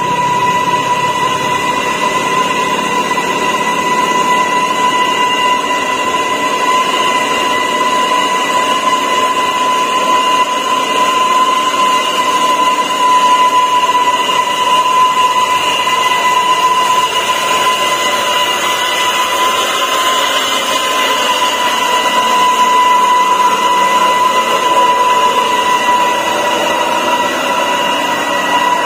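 Loaded Mitsubishi Fuso truck crawling slowly up a steep grade in low gear, with a steady high-pitched whine over the running noise.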